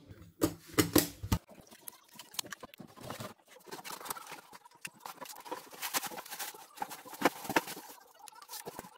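Handling and tool noise from an opened Pentax 67II camera body: a few loud clicks and knocks near the start, then a run of small clicks, taps and scrapes as a screwdriver works at the body's metal and plastic parts.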